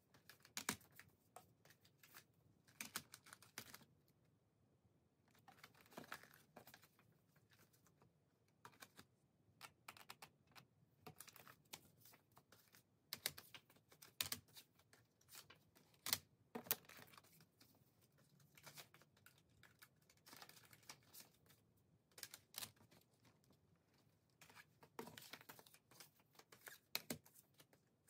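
Plastic CD jewel cases clicking and clacking as they are picked up, set down and stacked on a wooden table. The clicks come in irregular clusters with short lulls between them.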